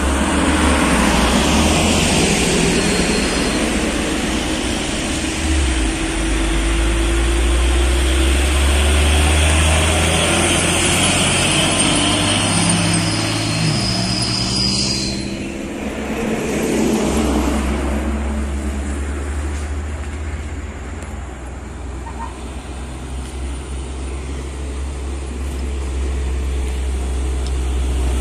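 Heavy diesel vehicles going past one after another: a Mercedes-Benz OH 1626 coach, then loaded trucks. A deep engine drone steps in pitch a couple of times, eases off about halfway through, then another truck's diesel engine grows louder toward the end.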